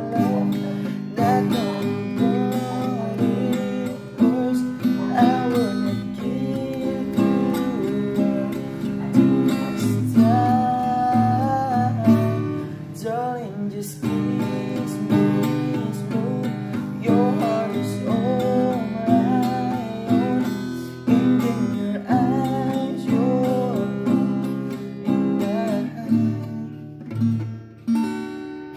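A man singing while he strums an acoustic guitar, the voice carrying the melody over the guitar's chords.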